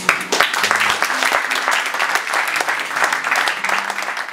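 Audience applauding, a dense patter of clapping, right after an acoustic song ends; it begins to die down at the very end.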